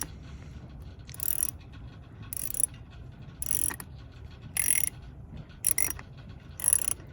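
Ratchet wrench with a 10 mm socket being worked on a battery terminal clamp nut, tightening it. The pawl gives a short clicking buzz on each back-swing, about once a second, six times.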